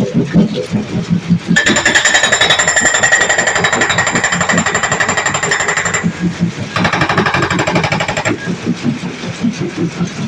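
Hydraulic rock breaker on a backhoe loader hammering: two bursts of rapid metallic blows, the first about four seconds long and the second about a second and a half, with a short pause between them.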